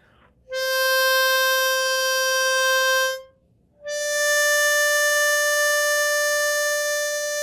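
Diatonic blues harmonica in C playing two long single notes on hole 4: C blown, then after a short pause D drawn, a step higher.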